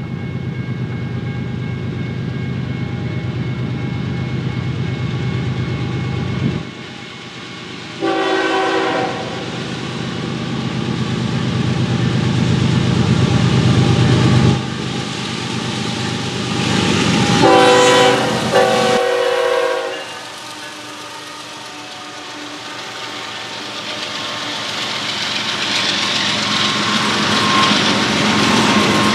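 Union Pacific diesel locomotives leading a double-stack freight train: the engines drone steadily as they approach, the multi-tone air horn sounds twice (a blast about 8 s in and a longer, louder one about 18 s in), then the stack cars roll past with wheel and rail noise rising toward the end.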